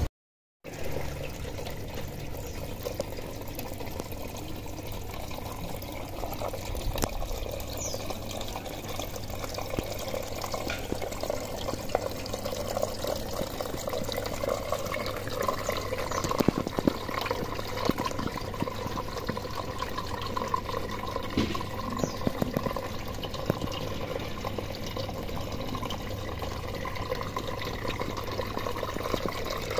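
Water running and trickling steadily through a hydroponic PVC pipe system.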